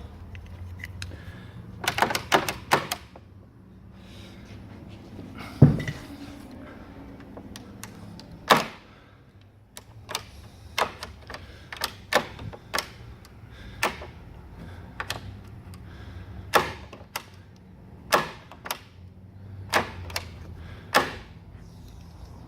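Lockwood 001 deadlatch being worked by hand: a quick run of four sharp metal clicks, one heavier thunk, then a string of single clicks about once a second.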